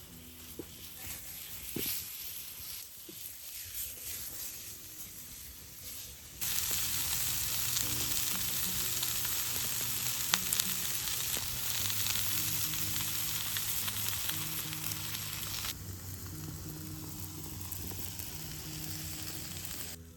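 Food sizzling and frying over a Finnish log candle fire, a steady hiss. It jumps louder about a third of the way in and drops back near the end.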